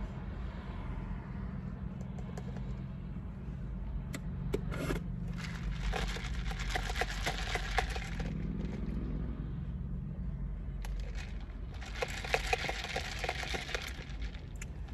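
Ice cubes rattling and scraping in a plastic cup of iced shaken espresso as the drink is stirred with a straw, in two spells of a couple of seconds each, with a few separate clicks before them. A steady low hum runs underneath.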